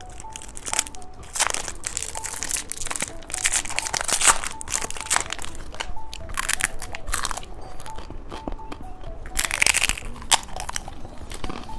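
Close-up crunching and chewing of a small umbrella-shaped candy, in repeated crisp bites, over quiet background music.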